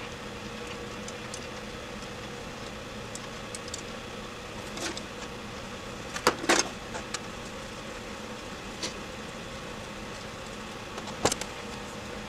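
A few light metallic clicks and taps of small carburetor parts being handled and fitted while metering rods go back into an Edelbrock 1406 carburetor, the loudest cluster about six seconds in and another near the end, over a steady background hum.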